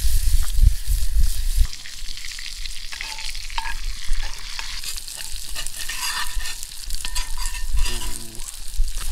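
Food sizzling and crackling in a frying pan, with a few light metallic clinks. A low rumble runs under it for the first couple of seconds.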